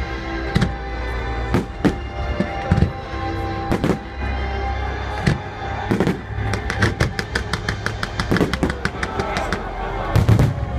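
Fireworks bursting over music: single bangs about once a second, then a quick run of crackling reports in the second half, and the heaviest bursts near the end.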